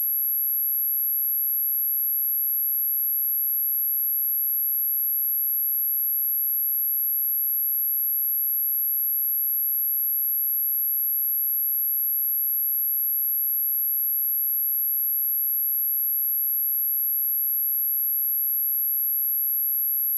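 A steady, high-pitched 11632 Hz pure sine-wave test tone, one unchanging pitch.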